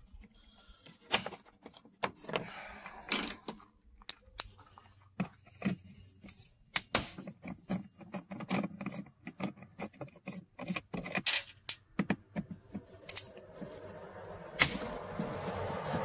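Irregular sharp clicks, taps and metallic clinks of hand tools and small fasteners being worked on the Predator 3500 generator's casing during disassembly. A rising rush of noise swells near the end.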